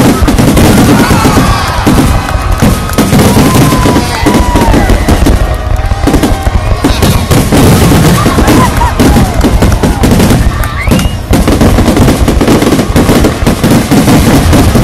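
A dense barrage of aerial fireworks shells launching and bursting, very loud, the bangs coming in rapid, nearly unbroken succession.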